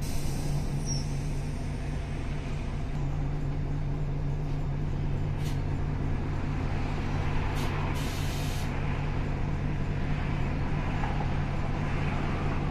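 MAN NL202 CNG city bus running with a steady engine hum. Around the middle come three short hisses of compressed air from its air system, the last lasting under a second.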